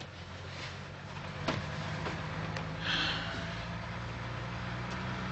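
A vehicle engine running with a steady low hum. There is a sharp click about a second and a half in and a short breathy rush about three seconds in.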